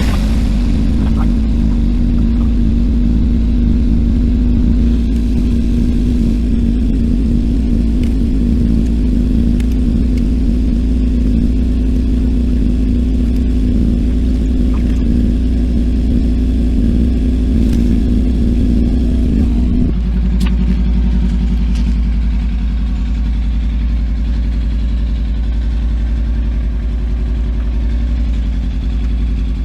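Kawasaki Ninja 300's parallel-twin engine running steadily just after being started; about twenty seconds in its note drops to a lower, slightly quieter idle.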